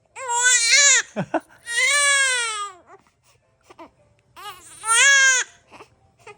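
Baby crying in three long wails with short catches of breath between them, upset at having its nose cleaned.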